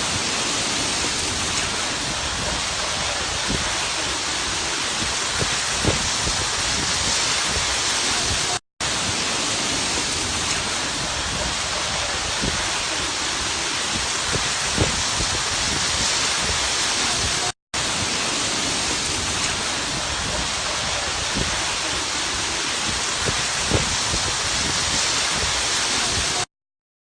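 Steady, even hiss of storm wind and driving rain, with a few faint pops. It cuts out briefly twice, and the same stretch of about nine seconds repeats each time, so the recording is looped.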